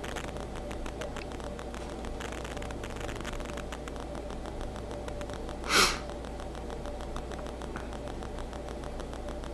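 Room tone: a steady low hum, broken once, about six seconds in, by a short hiss-like burst of noise.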